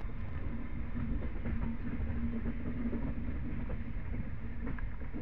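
Passenger train running along the track, heard from an open door of the moving coach: a steady rumble of wheels on rails with a steady low hum and faint scattered clicks.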